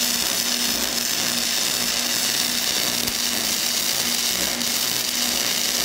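Gasless self-shielded flux-core (Innershield) arc welding from a 110-volt welder, running a straight bead with no weave along a butt joint between two plates. The arc gives a steady, even sizzling crackle.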